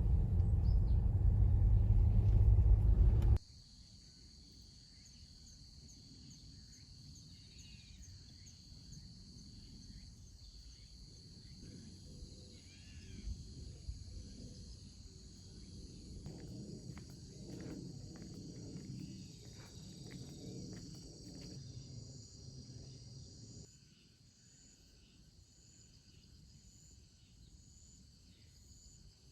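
Outdoor ambience of insects trilling steadily at a high pitch, with scattered short bird chirps and a soft low rumble. It opens with a loud low rumble that cuts off abruptly about three seconds in.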